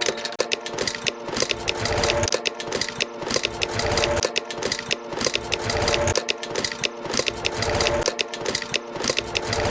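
Rapid, irregular mechanical clattering over a steady droning hum, like a small motor running.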